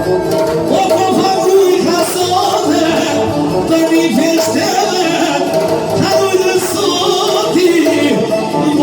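Tallava music playing loudly and continuously, its melody wavering and richly ornamented.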